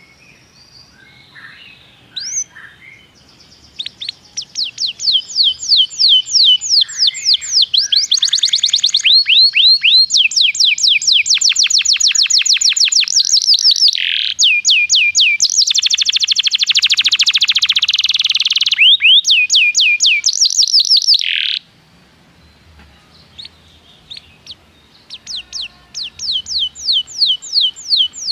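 Domestic canary singing: long runs of rapid, high, repeated falling chirps, with a fast buzzy trill in the middle. The song stops abruptly about 21 seconds in and starts again a few seconds later.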